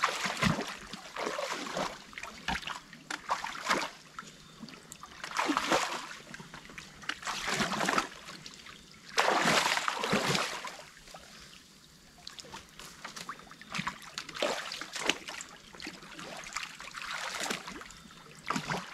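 Water splashing and dripping as sticks and mud are pulled out of a beaver dam, with water trickling through the breach. The splashes come in irregular bursts, the biggest about nine seconds in.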